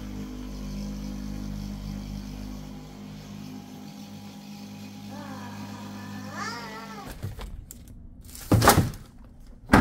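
Handheld electric massager running with a steady low hum, pressed against a small child's back, then switching off about seven seconds in. Short wavering cries come in over it from about five seconds in, and two loud knocks follow near the end.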